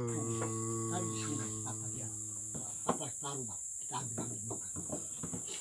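Steady high-pitched insect drone throughout. A man's voice holds one long low note for about the first two and a half seconds, then gives way to quiet, indistinct talk.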